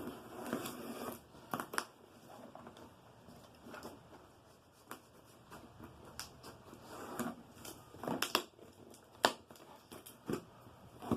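Cardboard box and packing material being handled and opened: scattered sharp clicks and knocks among short bouts of rustling and crinkling, the sharpest knock about nine seconds in.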